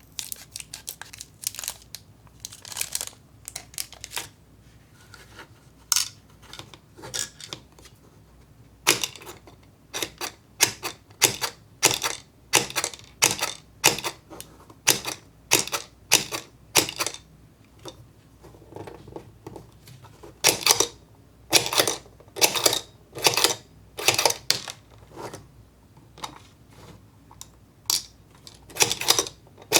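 Small hard plastic pieces of a toy candy kit clicking and clattering as they are handled, in quick irregular bursts about one to two a second with a few short pauses.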